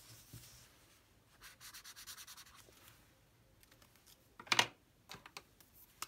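Carioca pastel felt-tip pen rubbing across notebook paper in a quick run of short strokes, scribbling a colour swatch, about a second and a half in. A sharp click, the loudest sound, follows about four and a half seconds in, with a few faint ticks after it.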